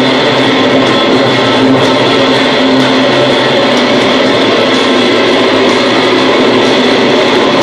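Loud, distorted electric guitars of a rock band jamming on long, held, droning notes, with no steady drumbeat, heard from the seats of an arena.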